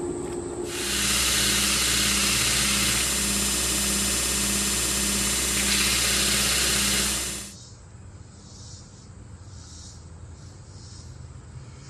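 Belt grinder running with a Scotch-Brite belt polishing the tempered steel hammer head: a loud, steady rushing grind over a low motor hum. It cuts off suddenly a little past halfway, leaving a quiet background with faint, evenly repeating high pulses.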